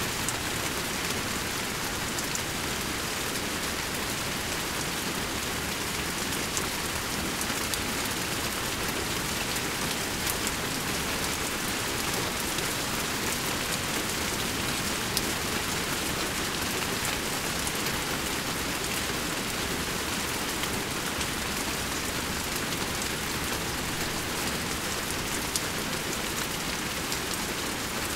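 Gentle rainfall: a steady, even hiss of rain falling on surfaces, with many small sharp drop hits scattered through it.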